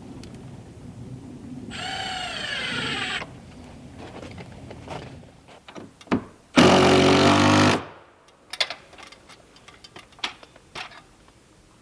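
A cordless power driver runs in two bursts: a quieter one about two seconds in whose pitch dips and rises, then a loud, buzzing one of about a second near the middle. Scattered knocks and clatter of handling sit around them.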